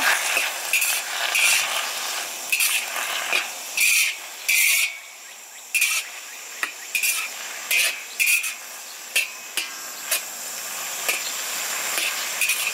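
A metal spatula scraping and clanking against a wok as bok choy is stir-fried, over a steady frying hiss. The scrapes come every second or so, with longer, louder strokes in the first five seconds and short knocks after that.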